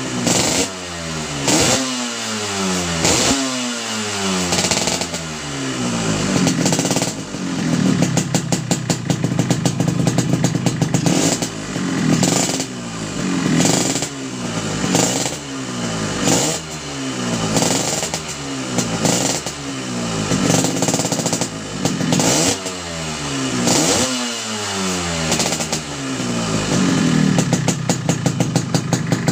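Yamaha RX-King's two-stroke single-cylinder engine running through an aftermarket racing muffler. The throttle is blipped again and again, and each time the revs jump and then fall back, with a few stretches of steady, choppy running between.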